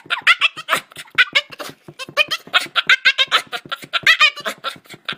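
Boston terrier making a rapid string of short, pitch-bending whining calls, several a second, while asking to play with the ball.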